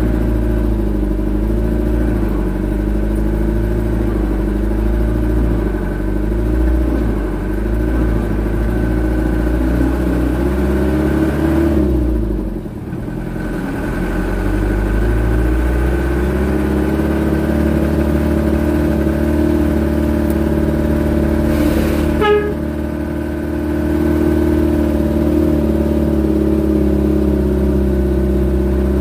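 Hino Dutro dump truck's diesel engine running under way, heard from inside the cab. The engine note sinks and dips briefly near the middle, then builds again. There is a single short clunk about three-quarters of the way through.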